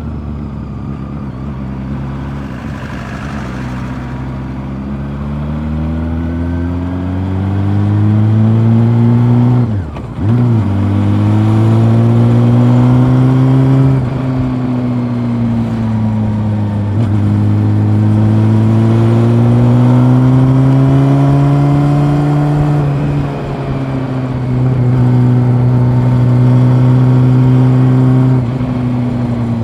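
Honda CB400 Super Four's inline-four engine heard from onboard while riding, its pitch rising and falling with the throttle. About ten seconds in the engine note drops sharply and comes straight back, with a few smaller dips later as the throttle is eased.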